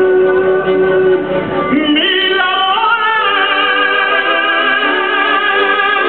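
Symphony orchestra playing with an operatic tenor. About two seconds in, the tenor takes a long held note with vibrato over sustained orchestral chords.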